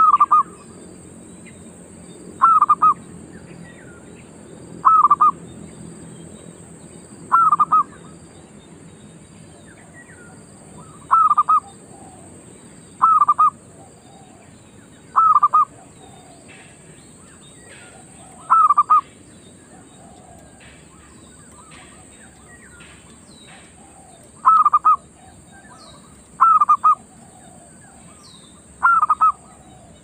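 Zebra dove (merbok) giving short, loud calls, each a quick double note, repeated about every two seconds with one longer pause, over a steady high hiss.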